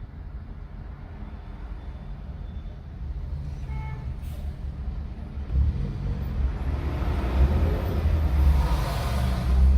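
Road traffic: the low rumble of a large vehicle builds and its hiss swells toward the end as it passes. There is a short beep about four seconds in.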